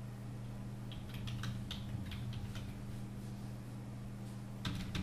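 Computer keyboard typing: a quick run of keystrokes about a second in, and two more near the end, over a steady low hum.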